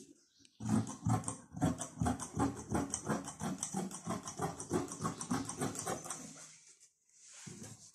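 Scissors cutting through fabric on a table in a quick, even run of snips, about five or six a second, stopping about a second before the end.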